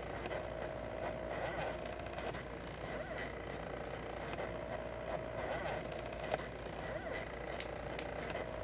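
Stepper motors of a 2000 mW diode laser engraver whining as the laser head moves back and forth engraving wood. The whine holds a steady pitch along each pass and dips and rises again at each change of direction, about once a second, over a constant low hum.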